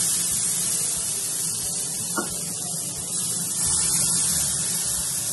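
Pancake batter and ghee sizzling in a hot nonstick frying pan, a steady hiss, with one light tap of the steel spoon against the pan about two seconds in.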